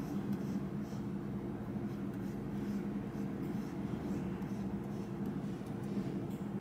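Stylus tip scratching and rubbing across the surface of a drawing tablet as strokes are drawn, over a steady low hum.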